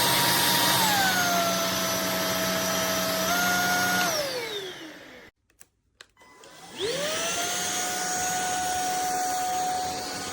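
Anyson cordless stick vacuum cleaner's motor whining. It steps down in speed about a second in and back up near three seconds. About four seconds in it is switched off and winds down, with a couple of clicks in the silence. Near seven seconds it is switched on again and whines up to a steady speed.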